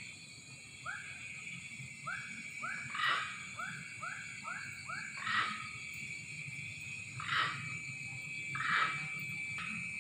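An unidentified wild animal calling at night: a run of short chirping notes, then loud harsh calls about every two seconds. Under it runs a steady high-pitched drone.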